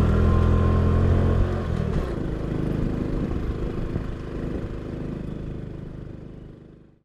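Motorbike engines running during a ride on a dirt road, with road and wind noise. The low engine hum eases after about two seconds, then everything fades away toward the end.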